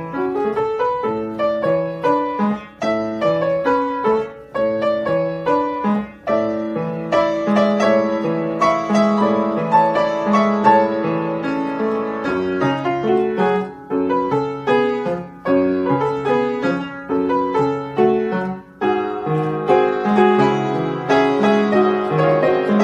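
Solo piano playing a classical piece, with many notes in quick succession.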